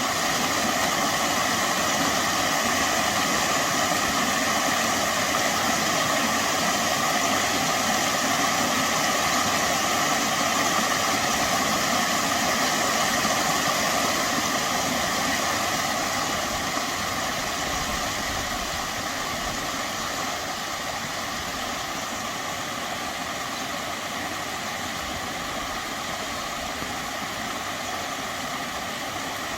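Mountain stream rushing steadily over rocks in a valley, growing somewhat quieter from about halfway through.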